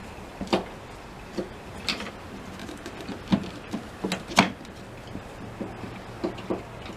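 Irregular clicks and knocks of hand tools and plastic: a screwdriver working at the screws holding down a pickup's plastic windshield cowl panel, with the panel being handled. The loudest knock comes about four and a half seconds in.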